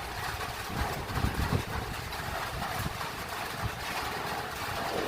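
Steady rain falling, a dense hiss flecked with fine drop ticks, over an uneven low rumble.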